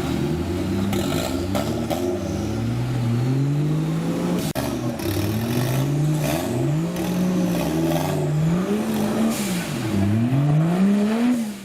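Off-road 4x4's engine revving up and down again and again, its pitch climbing and falling every second or two, with a few sharp knocks and clatters.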